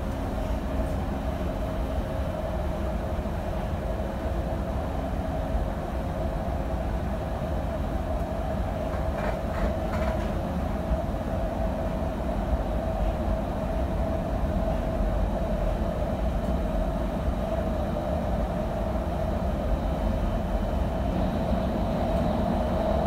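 Doha Metro train running at speed, heard from inside the front car: a steady rumble of wheels on rail with a steady hum. It gets a little louder near the end as the train enters a tunnel.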